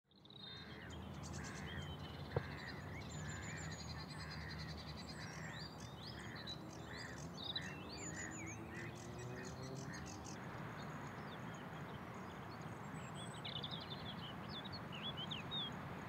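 Wild birds calling and chirping over a steady outdoor hiss. A regular series of short calls about twice a second runs for the first ten seconds, and there is one sharp click about two and a half seconds in.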